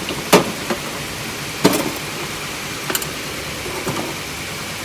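A few short, sharp clicks and knocks of metal tooling being handled and set down, over a steady background hiss.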